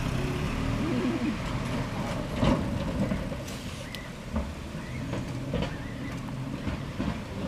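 Road traffic at a level crossing: motor vehicle engines running with a few irregular knocks, and no crossing bell ringing.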